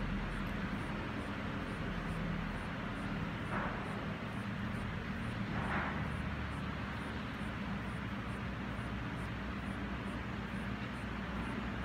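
Steady background rumble and hiss, with two faint, brief scratchy sounds a few seconds in.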